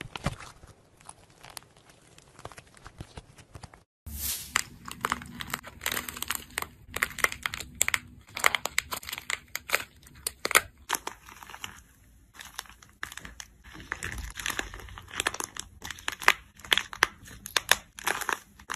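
Hands squeezing slime, faint and soft for the first few seconds. Then, about four seconds in, hands squeezing and breaking clay with a dried outer crust, giving a dense, irregular run of sharp crackles and crinkles.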